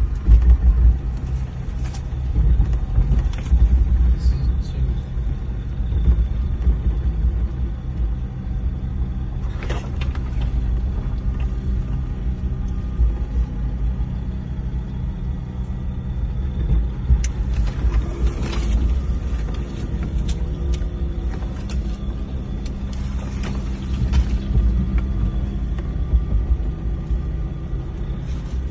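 Land Rover Discovery 2 Td5's five-cylinder turbodiesel engine running under load, heard from inside the cabin as the vehicle drives a rough dirt track, a steady low rumble that swells now and then. Scattered knocks and rattles from the body and suspension over the bumps.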